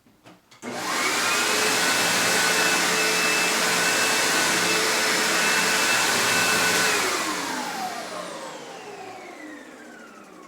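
Hoover Insight commercial upright vacuum cleaner switched on about a second in and running steadily, a loud rushing noise with a steady whine. About seven seconds in it is switched off, and its pitch falls slowly as the motor spins down.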